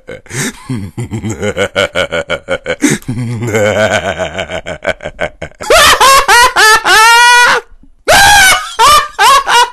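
A man's impression of the Joker's laugh: a low, rapid, staccato chuckle that, about five and a half seconds in, turns into loud, high-pitched cackling shrieks, each rising and falling in pitch.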